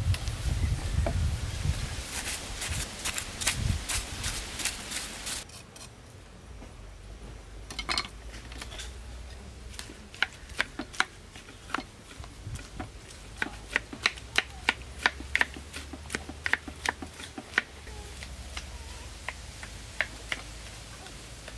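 A knife chopping watermelon flesh inside a stainless steel bowl, a dense run of clicks and dull thuds. After a pause a spoon mashes the chopped flesh in the bowl, with sharp clicks against the metal about once or twice a second.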